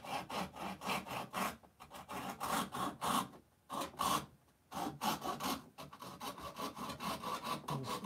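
Fine-toothed hand saw cutting through the model railroad layout's fascia in quick back-and-forth strokes, about three a second. The sawing stops twice briefly about halfway, then picks up again, a little faster near the end.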